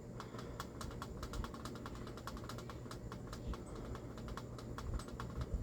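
Rapid, irregular light clicking, several clicks a second, over a low steady hum.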